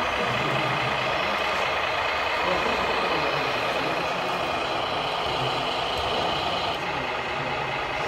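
Radio-controlled model excavator and tractors working: a steady machine noise that eases slightly a little before seven seconds in.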